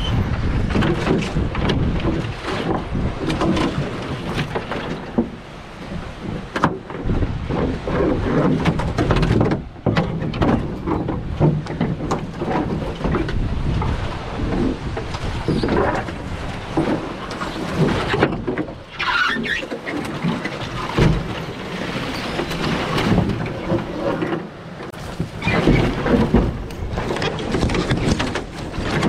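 Branches and brush scraping and knocking along the hull of a canoe carried overhead, with footsteps crashing through dry brush, as an irregular run of rustles and knocks. A brief squeal comes about two-thirds of the way through.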